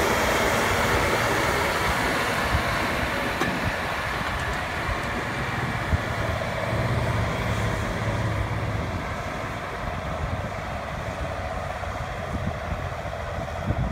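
Large farm tractor's diesel engine running under load as it tows a carry-scraper through loose soil, with occasional knocks; the sound gets steadily quieter as the tractor moves away.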